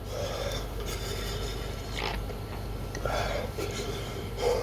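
A man breathing hard through the burn of a Carolina Reaper chili, with a few sharp breaths about a second apart.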